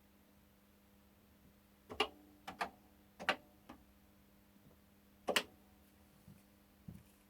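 Commodore CBM 8050 floppy disk drive formatting a disk: sharp clicks from the drive stepping its head across the tracks, coming singly and in pairs at uneven intervals, over a faint steady hum.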